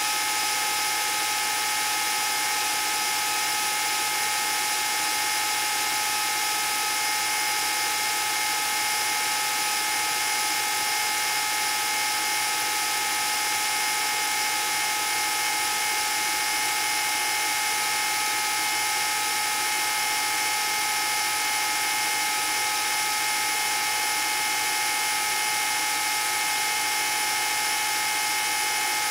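Old film projector running: a steady motor whine with a couple of fixed high-pitched tones over an even hiss.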